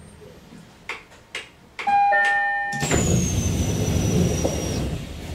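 Door-closing chime on an SR1 series electric train: a two-note chime of about a second, then the sliding passenger doors running shut with a rush of noise and a high whine that slides down in pitch, lasting about two seconds.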